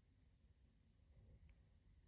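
Near silence: faint low room rumble, with one tiny tick about one and a half seconds in.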